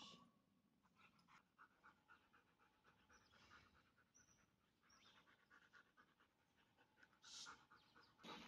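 Faint, quick panting of a white Swiss shepherd dog.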